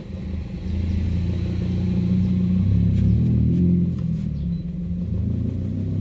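Toyota Wigo's engine idling roughly with a low, uneven rumble, misfiring on cylinder 3 because the injector's circuit is open: a broken injector wire.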